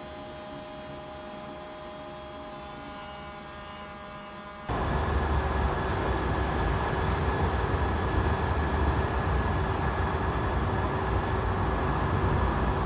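CNC machine running steadily with a humming whine. About five seconds in, the sound cuts abruptly to a louder, noisier running sound with a steady hum.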